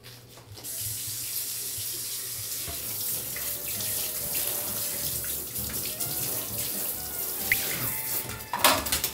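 Handheld shower head spraying water over a toy poodle's fur in a bathtub: a steady rush of running water that starts about half a second in. A brief louder noise comes near the end.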